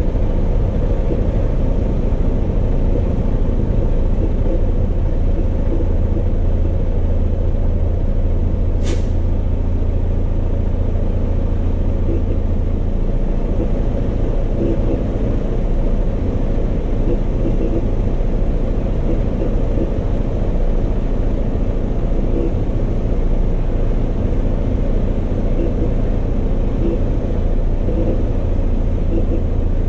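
Semi truck's diesel engine running as the rig creeps slowly, a steady low rumble, with one brief sharp high sound about nine seconds in.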